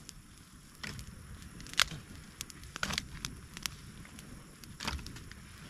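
Freshly lit wood fire crackling: a few irregular sharp pops and snaps, the loudest about two seconds in.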